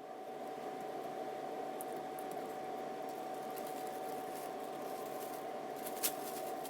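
A steady mechanical hum with one constant mid-pitched tone, fading in and out, with a single sharp click about six seconds in.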